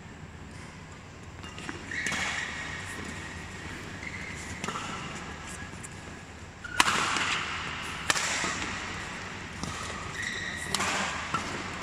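A badminton doubles rally: about five sharp racket-on-shuttlecock hits spread across the stretch, the loudest about two-thirds of the way through. Short squeaks of court shoes on the court mat come in between the hits.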